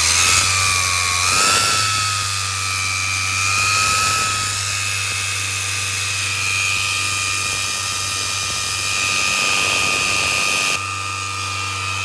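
VW Amarok BiTurbo 2.0 twin-turbo diesel held at raised revs, giving a steady high whistle over a hiss: the turbo noise of a burnt exhaust manifold gasket and turbo base gasket leaking. The whistle rises slightly in pitch at the start, and the hiss eases a little near the end.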